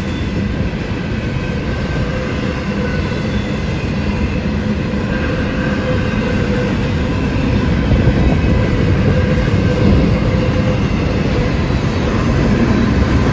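CSX intermodal freight train passing at speed: continuous rumble and roar of steel wheels on rail from the stack cars, with a few faint steady high tones riding on top. It grows a little louder partway through.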